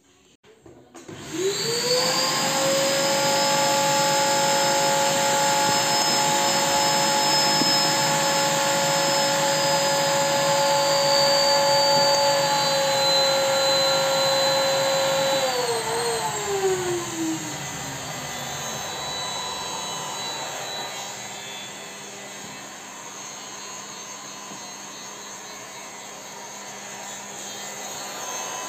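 Handheld electric heat gun running, its fan starting up about a second in and holding a loud steady whine while it heats the freshly glued end cone of an inflatable boat tube to seat it. About 15 seconds in its pitch glides down and it carries on at a quieter, lower hum.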